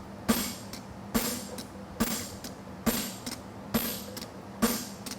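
Farrier's hammer striking hot steel bar stock on an anvil: six ringing blows at an even pace, a little under one a second, knocking out material while forging a horseshoe. A steady low hum runs underneath.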